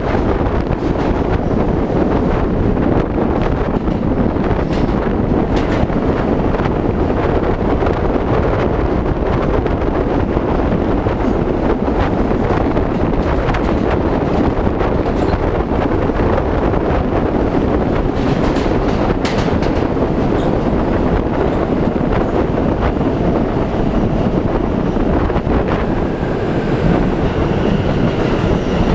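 New York City L subway train running at speed through a tunnel: a loud, steady rumble of steel wheels on rail, with a few sharp clicks from the track. Faint high wheel squeal creeps in near the end.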